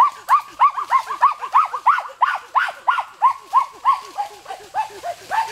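A rapid series of short animal calls, about five a second, each rising and falling in pitch.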